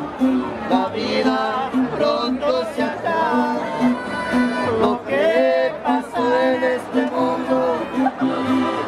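Two men singing a Spanish-language song to a guitar accompaniment, the sung lines wavering over steady, evenly repeated plucked notes.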